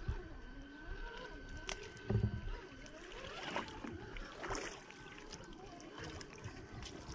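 Traxxas TRX-4 Sport RC crawler wading through a shallow stream: its electric motor and gears whine, rising and falling in pitch with the throttle, over splashing, sloshing water, with a low thump about two seconds in.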